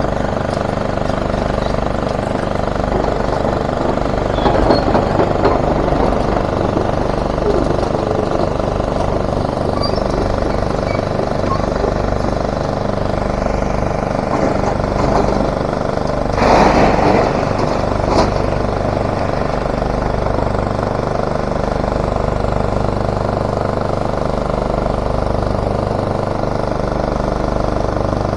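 Diesel engines of heavy demolition-site machinery running steadily, with a loud clattering crash about sixteen seconds in and a shorter knock about two seconds later.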